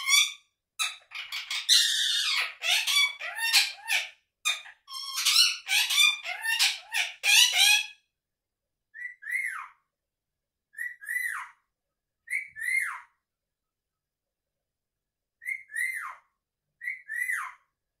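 Indian ringneck parakeet calling: a run of rapid chattering and squawks for the first eight seconds, then single short chirps that rise and fall, a second or two apart, with a pause partway through.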